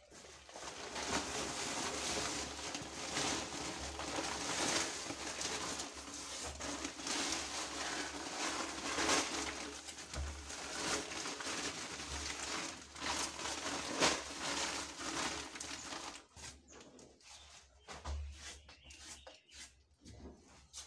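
Black soil being poured and spread into the digester pit: a continuous gritty rustle and pour with short scrapes and knocks. It stops about 16 seconds in, leaving only a few brief scuffs.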